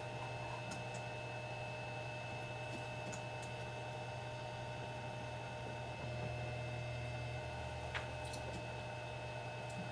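Steady electrical hum with faint, steady high whine tones from bench rework equipment, swelling slightly about six seconds in. A single light click about eight seconds in.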